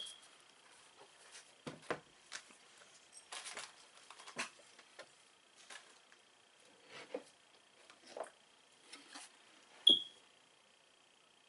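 Scattered light knocks, taps and rustles of things being handled on a tabletop: a sneaker set down and a plastic bottle picked up, with the sharpest knock near the end. A faint steady high whine runs underneath.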